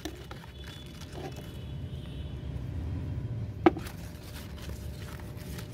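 Low background rumble that swells and fades, with one sharp knock about three and a half seconds in.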